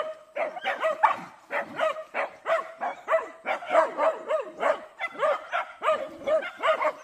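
Dogs barking in a fast, unbroken run, about three barks a second, sometimes overlapping.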